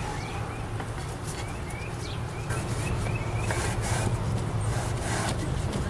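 A small bird chirping repeatedly in short rising notes over a steady low hum, with a few brief scrubbing strokes on wood in the second half.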